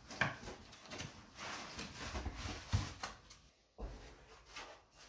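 Foam packing blocks rubbing and scraping against a cardboard shipping box as the packed unit is lifted out, with plastic wrap rustling and a few soft knocks.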